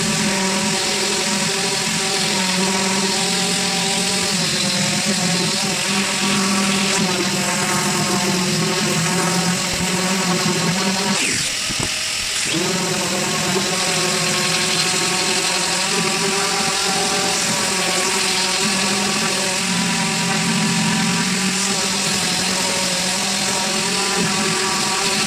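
Random orbital sander running steadily on a bare pine board, a constant motor whine with a hiss of abrasive. It stops for about a second near the middle, then starts again.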